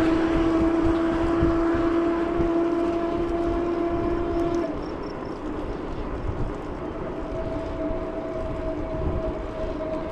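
Electric bike motor whining steadily under pedal assist while climbing, over wind rumble on the microphone; the whine cuts off about halfway through, and a fainter whine returns a couple of seconds later.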